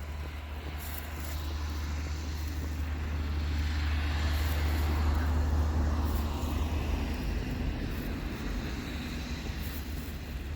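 A vehicle passing by, its sound swelling to a peak about five seconds in and then fading away, over a steady low rumble.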